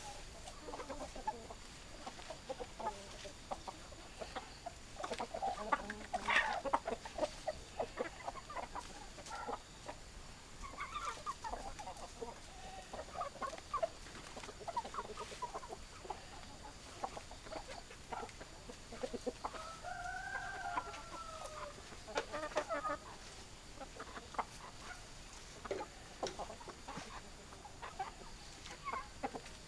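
Chickens clucking: many short, irregular hen calls throughout. One longer drawn-out call, rising and then falling, comes about two-thirds of the way through.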